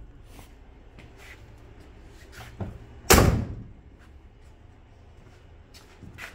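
A car door swung shut on a 1979 Ford Thunderbird, one slam about three seconds in, with a light click just before it.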